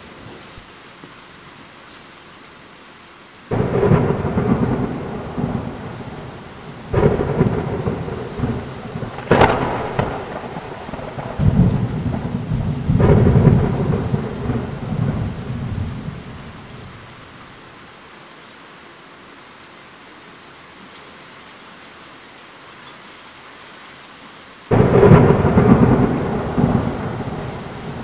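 Steady rain with a thunderstorm. A sudden thunderclap comes a few seconds in and rolls on in several loud peals for about a dozen seconds. Then the rain goes on alone until another sharp clap of thunder near the end.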